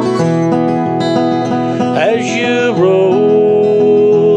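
Small-bodied acoustic guitar strummed as a steady country-gospel accompaniment; about two seconds in a man's voice joins, holding a long, wavering sung note.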